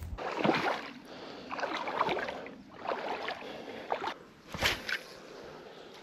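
Footsteps in wellington boots through wet, marshy bankside ground and grass, about five steps roughly a second apart, each a short squelching rustle.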